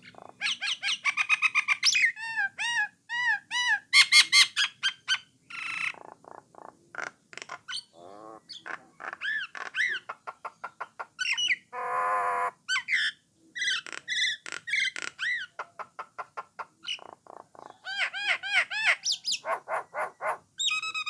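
Jalak nias (common myna) singing: runs of repeated arching whistled notes mixed with fast clicking chatter, and one harsh rasping note about halfway through.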